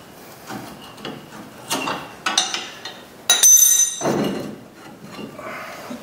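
Metal knocks and scrapes as a wrench is used to pry a front brake caliper off its rotor, with one loud metallic clank about three seconds in that rings briefly.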